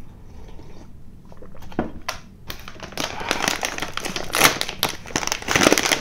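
A plastic-lined packet of sweets being crinkled and torn open by hand, a dense crackling of wrapper starting about three seconds in.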